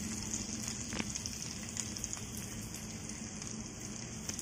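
Oil sizzling steadily on a tava griddle as coated mushrooms fry, with faint crackles and one sharper click about a second in.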